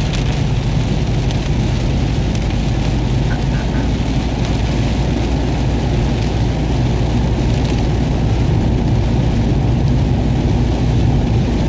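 Rain falling on a car's roof and windshield, heard from inside the cabin, over a steady low rumble of the engine and tyres on the wet road.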